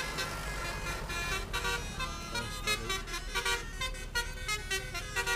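Basuri musical air horn on a bus (a telolet horn) playing a fast tune of short notes that step up and down in pitch.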